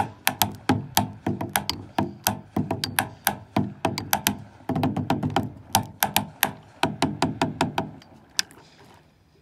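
Drumsticks beating a fast, busy groove on the hollow deck of a stand-up paddleboard: sharp stick clicks over dull, hollow thuds. The playing stops about eight seconds in, with one last single hit just after.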